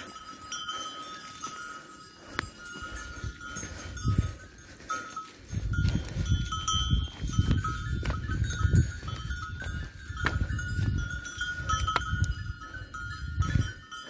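Bells on a grazing flock of sheep clinking and ringing on and off. A low rumble comes in about five seconds in.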